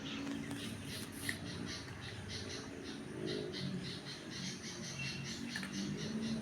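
Birds chirping, a steady run of short high chirps a few times a second, over low background noise.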